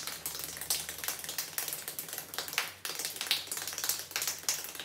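One person clapping bare hands together as fast as possible: a rapid, even run of sharp claps, in a timed speed-clapping attempt.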